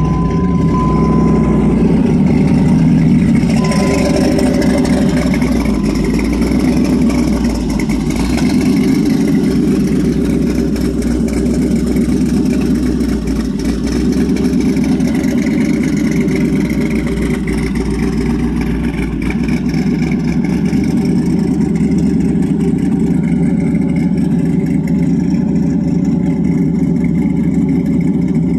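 LS-swapped Dodge Ram's GM LS V8, fitted with a new TSP Stage 4 camshaft, idling steadily just after a cold start.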